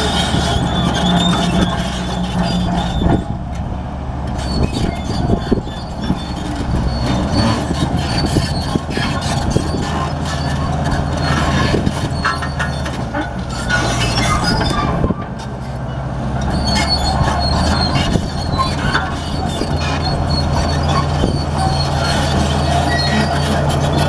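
Komatsu D65P crawler bulldozer working under load as it pushes dirt: a steady diesel engine drone with its steel tracks clanking throughout.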